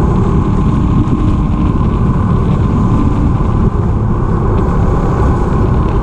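Honda X-ADV 750's parallel-twin engine running through a MIVV slip-on exhaust, a steady, loud low rumble.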